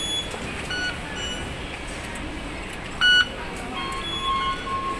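Octopus card readers on MTR fare gates beeping again and again as passengers tap through, short beeps at several pitches over the steady hubbub of the station, with one much louder beep about three seconds in.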